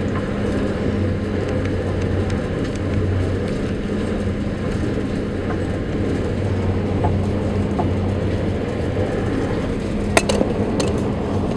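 Passenger ferry under way, heard from inside its cabin: a steady, low engine drone and hull rumble. Two sharp clicks sound near the end.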